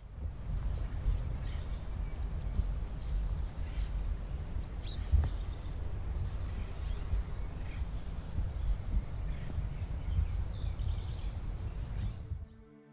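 Outdoor ambience: many small birds chirping in short, high calls over a steady low rumble, fading out near the end.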